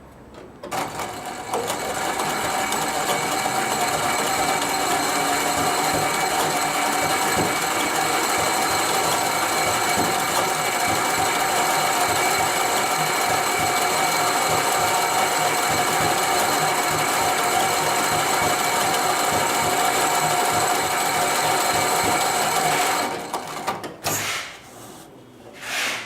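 HIGHTEX 204-370DP heavy-duty post-bed double-needle sewing machine running steadily at speed, stitching with thick thread. It starts under a second in, stops a few seconds before the end, and is followed by two short bursts.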